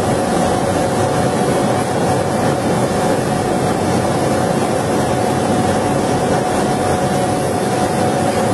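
Leather laser cutting machine running while it cuts: a steady rushing noise with a constant mid-pitched hum through it.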